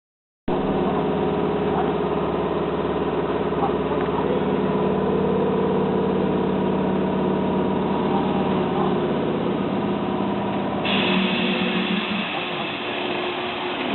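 Hankyu 5100 series electric train standing at the platform, its onboard equipment humming steadily with several held tones. About eleven seconds in the sound changes: the low hum drops back and higher tones come in.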